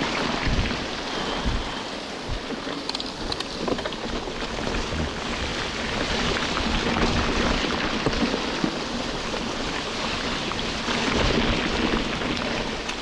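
Heavy tropical-storm rain pouring steadily, with irregular low thumps and rumble underneath.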